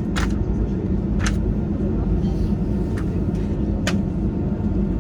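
Cabin noise inside an Airbus A320-216 with its CFM56 engines running: a steady low rumble, broken by about four short, sharp clicks.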